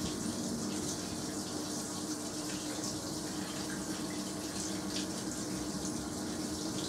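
Hoover AXI front-loading washing machine taking in water, a steady rush of water with splashing over a constant low hum.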